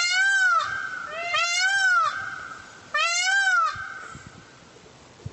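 Male Indian peafowl (blue peacock) giving three loud calls, each rising then falling in pitch and lasting under a second, about a second and a half apart.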